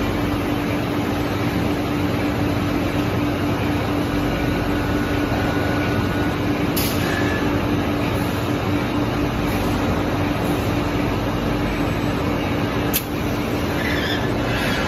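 Steady machinery noise of a hot-forging line beside its heating furnace, with a constant low hum underneath. A faint click comes about halfway through and a sharp click near the end.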